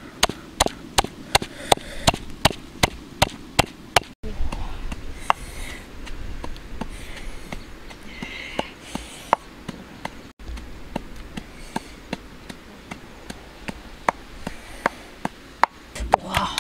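Wooden pestle pounding chilies, garlic and coarse salt in an earthenware mortar: a steady run of sharp knocks, about three a second, that thins out and softens in the middle and quickens again near the end.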